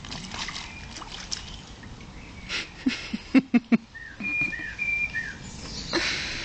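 A small terrier barking four times in quick succession, followed by short high chirping, whistle-like notes and a brief rush of noise near the end.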